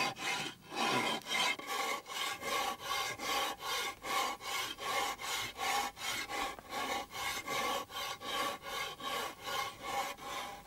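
A big coarse rasp filing a white sculpture block in quick, even back-and-forth strokes, about two to three a second, rounding off its roughed-out forms.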